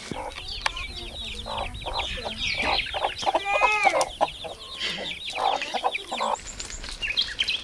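Chickens clucking, with one longer pitched call about three and a half seconds in, over a steady run of rapid high chirps.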